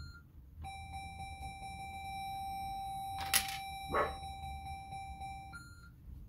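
Coin-operated fruit slot machine sounding a steady electronic tone through its speaker as its lights chase around the board during a spin, with a short higher beep near the start and again near the end. Two short knocks a little past the middle.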